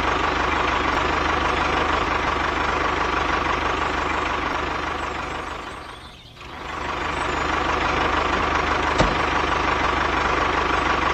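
Tractor engine sound running steadily at idle with a low, even knock. About six seconds in it fades away and comes straight back, and a short sharp click comes near nine seconds.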